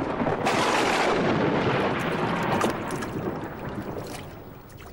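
A thunderclap breaks loudly about half a second in, then rumbles and crackles away over the next few seconds, with rain falling throughout.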